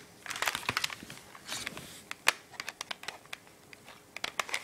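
Plastic airsoft pistol being handled and worked: a run of light clicks and rattles, with one sharper snap about two seconds in.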